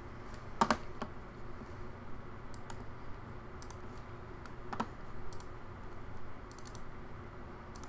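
Scattered clicks and taps of a computer keyboard and mouse, with a sharper click under a second in and another near five seconds, and small runs of faint taps between.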